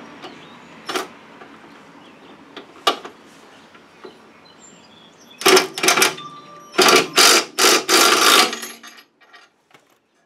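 Ryobi cordless driver running in two short bursts, about five and a half and seven seconds in, driving the mounting bolts of an aluminium A-arm/CV boot guard. A couple of sharp metal clicks come before it.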